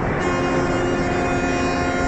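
A cruise ship's horn blowing one long, steady blast that starts about a quarter second in, over background street noise.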